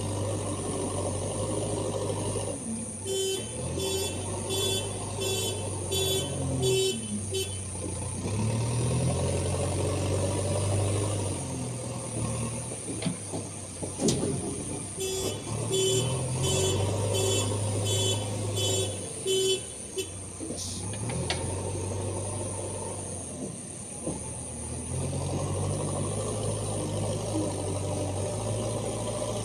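JCB 3DX backhoe loader's diesel engine running and revving up and down as it works, with a reversing alarm beeping about twice a second in two spells, a few seconds in and again about halfway through.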